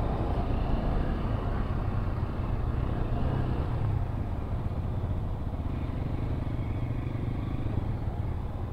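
Bajaj Pulsar NS200's single-cylinder engine running on the move, heard through a helmet-mounted phone under a steady low wind rumble on the microphone.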